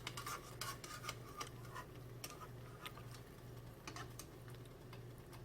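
Pancake batter frying in hot oil in a pan: faint, irregular crackling and popping as it crisps.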